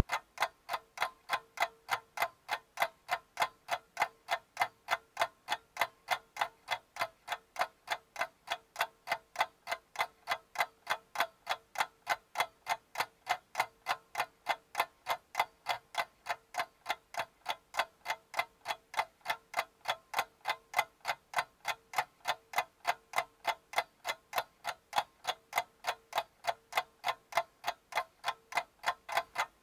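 A clock ticking, steady and even at about two and a half ticks a second, with nothing between the ticks.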